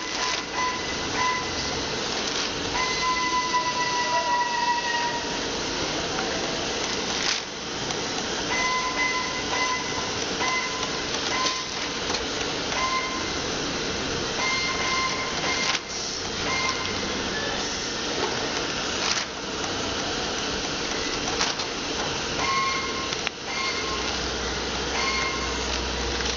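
Tyre-retreading shop machinery running steadily, a constant hiss and hum with short high-pitched tones every second or two and a few sharp knocks.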